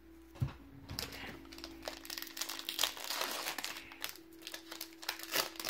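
Foil wrapper of a Pokémon booster pack crinkling as it is torn open and handled, starting about a second in.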